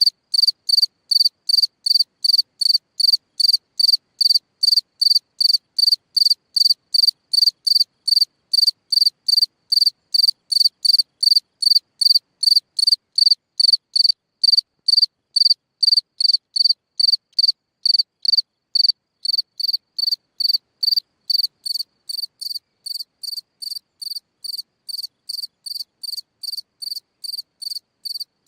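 A cricket singing from its hole in the ground: a steady, even run of short, high-pitched chirps, about two and a half a second. They become quieter about three-quarters of the way through.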